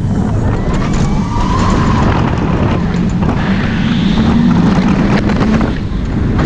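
Wind buffeting the onboard camera's microphone over the loud, steady rumble of the Cheetah Hunt roller coaster's train running at speed on its steel track as it dives into a trench.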